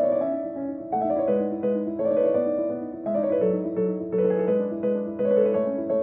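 Background piano music: a gentle melody of single notes struck a few times a second over held lower notes.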